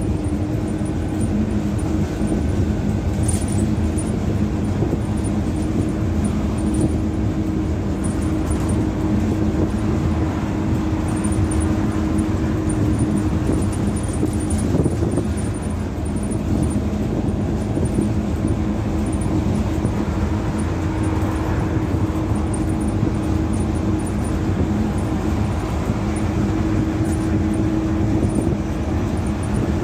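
Volvo Wright Gemini double-decker bus cruising at a steady speed, heard from the upper deck: a constant engine drone with a steady hum over tyre and road rumble.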